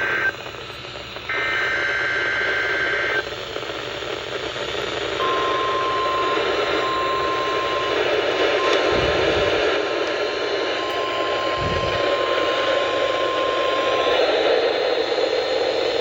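Emergency Alert System weekly test heard through a weather radio receiver under steady static hiss. It begins with a warbling burst of digital header tones, then a steady single-pitch alert tone that drops out several times as reception fades. Two dull low thumps come midway.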